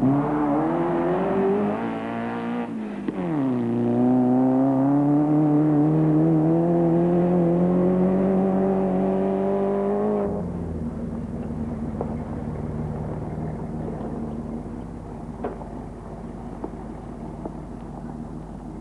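Off-road race car engine under hard acceleration, its pitch climbing, dropping briefly about three seconds in, then climbing steadily again. It cuts off abruptly about ten seconds in, leaving a quieter steady engine hum with a few light ticks.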